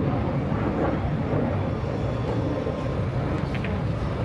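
Steady low rumble of the F-35C Lightning II's single turbofan jet engine as the fighter flies overhead.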